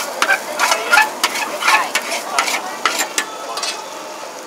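Metal turner clanking and scraping against a large iron wok as flat rice noodles are stir-fried over a sizzle, a quick run of sharp strokes that thins out and gets quieter toward the end.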